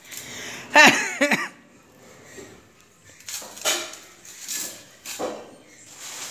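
Husky eating from a steel bowl: its muzzle knocks the bowl and it chews, in scattered bursts. A short voice-like sound, the loudest thing, comes about a second in.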